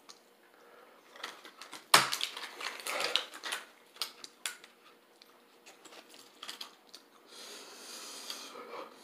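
Small shiny foil-like packet being handled and opened with the fingers: a sharp snap about two seconds in, then a run of crinkles and clicks, and a brief rustle near the end.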